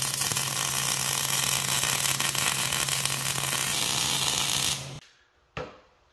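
Wire-feed (MIG) welder laying a bead on a steel post: a steady crackling hiss over a low electrical hum. It stops about five seconds in, and a single light knock follows.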